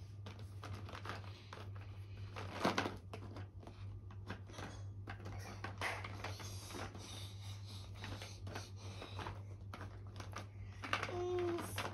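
Small clicks and rustles of magnetic puzzle pieces being picked out of a box and pressed onto a magnet book, with one louder click about two and a half seconds in.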